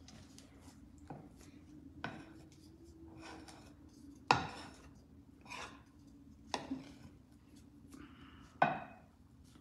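Spoon knocking and scraping in a pot as eba (cassava-flake dough) is mashed and stirred. Sharp knocks come every second or two, the loudest about four seconds in, over a faint steady hum.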